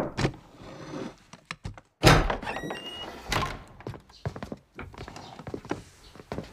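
Wooden lattice doors pushed open with a loud thud about two seconds in, followed by a string of knocks and footsteps on the floor.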